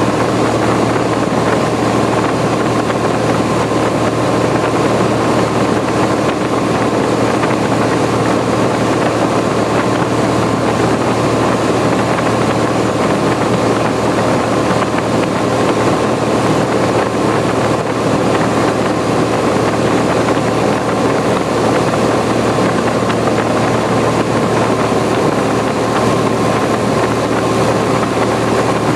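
Cessna 170A's six-cylinder Continental engine and propeller running steadily in flight, an even, unbroken drone heard from inside the cabin.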